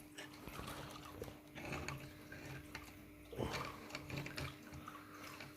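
Lego Technic 42036 dirt bike moved by hand, its plastic gears and engine pistons clicking and rattling faintly, with a louder knock about three and a half seconds in.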